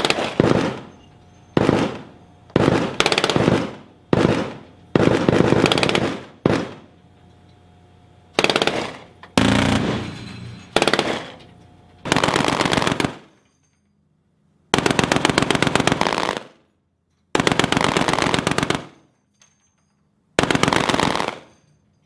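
Shipboard automatic gun firing about a dozen bursts of rapid fire. The bursts run from a fraction of a second to about two seconds, with short gaps between them. The early bursts trail off in a fading echo, and the later ones stop abruptly.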